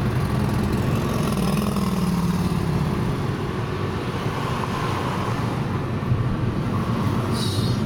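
Steady road and engine noise heard from inside a car's cabin at highway speed, with a low engine drone that fades out about three seconds in.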